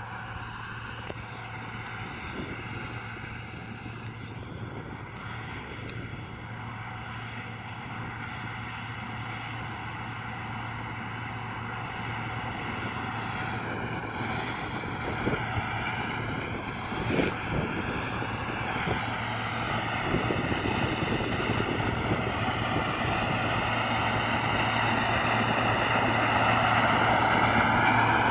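Case IH Puma 165 tractor's six-cylinder diesel running steadily as it pulls a seedbed cultivator across the field, growing louder as it approaches. Over it runs a steady high whine from a drone's propellers that wavers in pitch.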